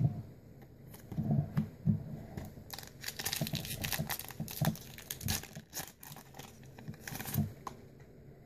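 Foil Pokémon booster pack being torn open and crinkled by hand: a run of crackling from about three seconds in until shortly before the end, after a few soft handling knocks.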